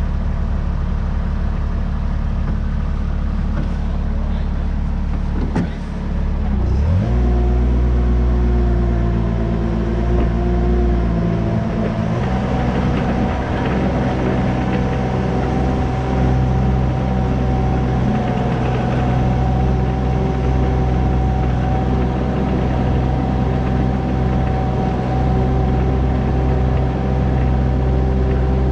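Cat 301.7 CR mini excavator's diesel engine running at a low steady speed. About six seconds in there is a brief knock, then the engine revs up and holds at higher revs, with a steady whine over the engine note.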